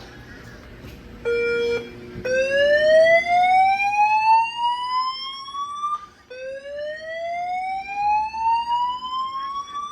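Building fire alarm sounding a slow-whoop evacuation tone: a pitch that rises steadily for nearly four seconds, cuts off and starts again. A brief steady beep comes about a second in, before the first sweep.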